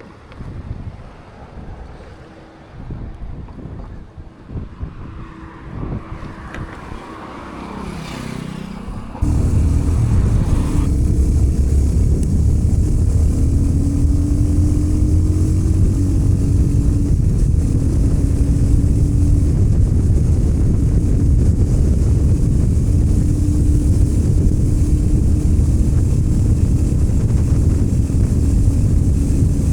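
Motorcycle engine and wind noise on the microphone, loud and steady while riding. It starts abruptly about nine seconds in, after a stretch of quieter, uneven rumbling.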